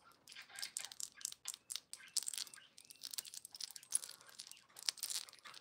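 Chunky gold-tone link chain handled close to the microphone: links clinking and rattling against each other in a quick, irregular run of small clicks, a few louder ones standing out.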